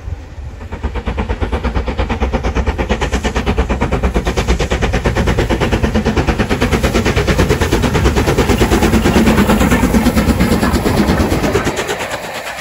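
LMS Black 5 steam locomotive 45407, a two-cylinder 4-6-0, working hard as it passes at speed: a rapid, even beat of exhaust chuffs from the chimney that grows louder as it nears and drops away near the end.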